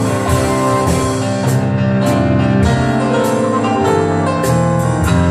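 Live band playing an instrumental passage of a blues-style Christmas song, with held chords and a steady beat of drum and cymbal hits.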